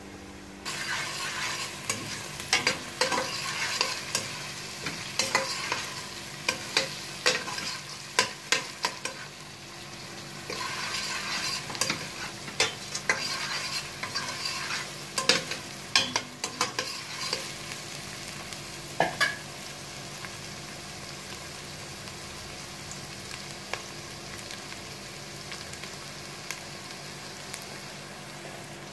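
Chopped onions sizzling in melted ghee in a stainless-steel pot as they are softened, stirred with a spoon that scrapes and clicks against the pot. The clatter of stirring comes in two spells and thins out in the last third, leaving a quieter steady sizzle.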